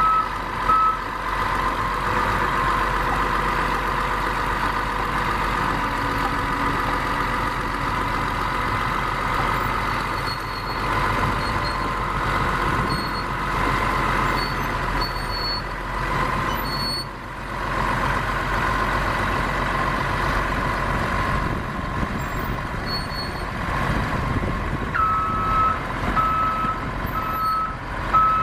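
Caterpillar D6R bulldozer running with a steady diesel engine note. Its reversing alarm beeps evenly for a moment at the start and again near the end.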